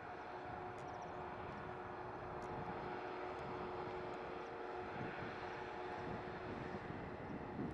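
Distant drone of a Class 66 diesel locomotive's EMD two-stroke engine as it hauls a train of hopper wagons, steady with a faint whine running through it. The whine drops away near the end.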